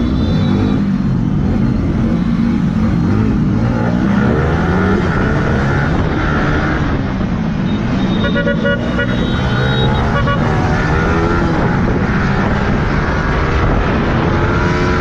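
Yamaha sport motorcycle's engine running in traffic, its pitch rising and falling as it revs, with a quick series of horn beeps about eight seconds in.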